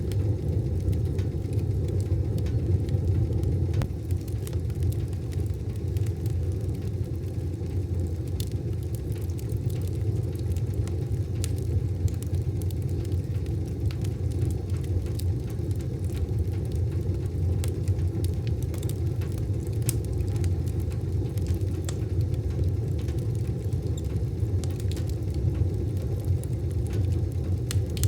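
Wood fire burning in a wood stove: a steady low rumble with scattered small crackles and pops throughout.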